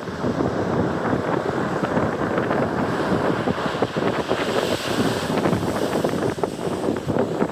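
Strong wind buffeting the microphone over waves breaking on a shingle beach. A higher hiss of surf swells briefly about halfway through.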